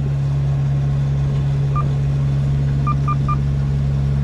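Sailboat's engine running steadily as the boat motors, a constant low drone. A few short electronic beeps sound over it, one about two seconds in and three quick ones a second later, from the VHF radio's buttons as it is switched to channel 69.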